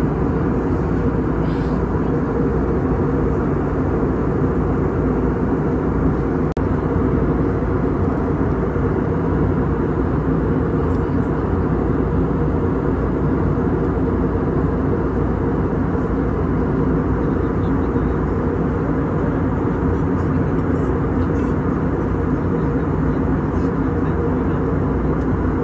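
Steady cabin noise of an airliner in flight, heard from inside the cabin: engine and airflow noise, even and unbroken, mostly low in pitch.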